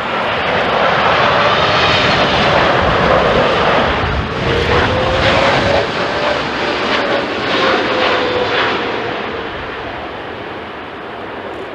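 Jet engines of a Boeing 787-9 airliner flying past at close range, a loud steady rush with a whine that rises and then falls as it passes, fading over the last few seconds.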